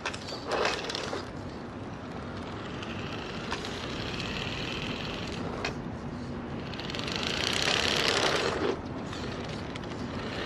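A vintage Tamiya Hornet RC buggy's brushed 540 electric motor and gearbox whining as it drives, the whine swelling and fading with throttle and distance, loudest near the end as it comes close. A sharp knock about half a second in.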